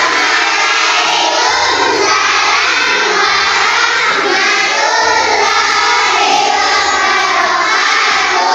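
A class of young children singing together, loud and continuous.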